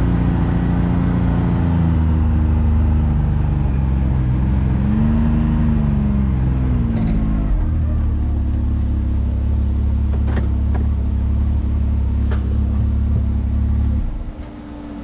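Can-Am Maverick X3 side-by-side's turbocharged three-cylinder engine running under way, its pitch dipping and rising about five seconds in, then settling to a steady low drone. Near the end it drops away sharply, leaving a quieter steady hum.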